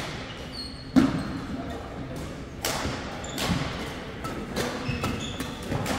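Badminton doubles rally on a wooden sports-hall court: sharp racket strikes on the shuttlecock and thudding footsteps, the loudest strike about a second in, with short squeaks between them.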